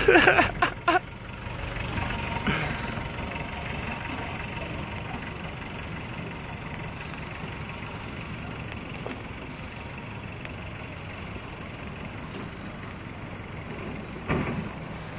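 Land Rover Defender 110 engine running steadily, a low even drone. Short bursts of voices come in the first second and again near the end.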